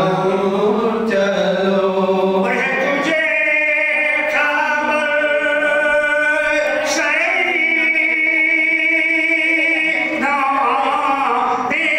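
A man singing a naat, an Islamic devotional poem, as a solo unaccompanied voice, drawing out long held notes with melodic turns between them.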